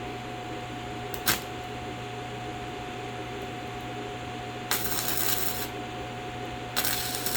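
Stick-welding arc from a small inverter welder running off a battery power station, crackling in two short bursts of about a second each as the rod is struck on the metal. A steady electrical hum runs underneath, with a single click about a second in.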